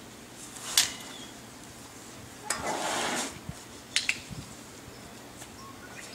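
Metal tool clinking and scraping against a steel ankle chain on an elephant's leg as the chain is worked free: a sharp clink about a second in, a short rasping scrape near the middle, and two quick clinks soon after.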